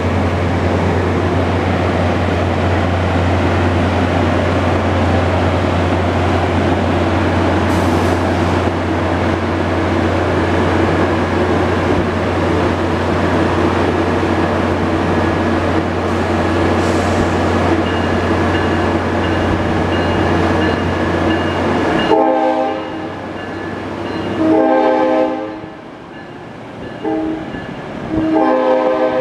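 NJ Transit ALP-45DP locomotive pulling a commuter train away under diesel power, running loud and steady with a low hum. About 22 seconds in that sound drops away and the locomotive's horn, which the uploader guesses is a Nathan K5LA, blows for a road crossing: two long blasts, a short one, then a long one.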